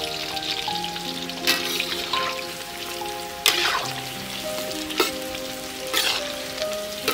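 Battered snakehead fish pieces deep-frying in hot oil in a wok, crackling steadily. A metal spoon strikes and scrapes the wok four times as the pieces are stirred.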